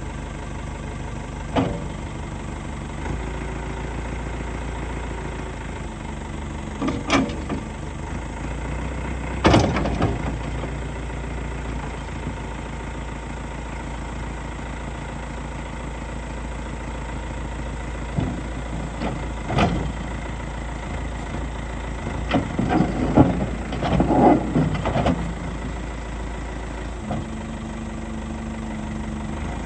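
Caterpillar 420D backhoe loader's diesel engine running steadily, its note shifting about three seconds in and again near the end. It is punctuated by several sharp metallic knocks and clanks, the loudest about ten seconds in and a cluster around 23–25 seconds.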